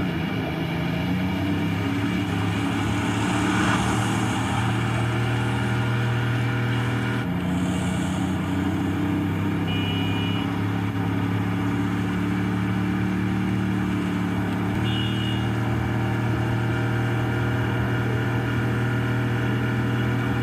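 Video game car engine running at a steady pitch, stepping to a new steady note twice, about seven and fifteen seconds in, like gear changes at speed.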